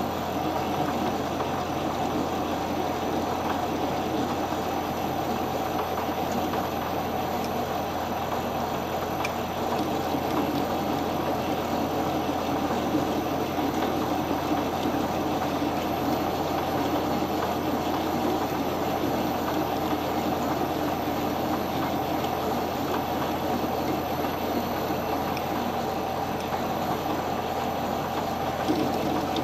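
Metal lathe running steadily, its chuck spinning as a carbide tool turns down the weld bead on a repaired Suzuki TS125 steel shift shaft. It gives a constant motor and gear drone with a low hum underneath.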